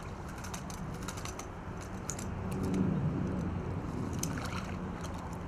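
Spinning reel clicking irregularly as a small hooked pike is played in at the bank, over a steady low engine drone from diggers working nearby that swells a little about halfway through.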